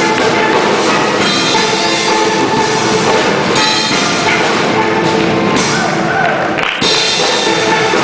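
Steel band playing: steel pans ringing out a melody over a drum kit keeping the beat.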